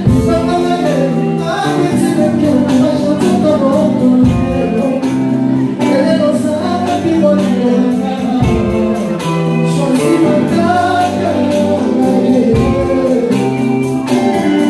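Live Congolese rumba band playing: several male voices sing together over bass, electric guitar, keyboard and conga drums, with a steady, loud groove.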